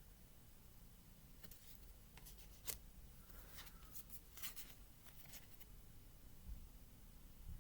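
Faint light clicks and rustles of tarot cards being handled, with a cluster of taps in the middle, the sharpest a little under three seconds in.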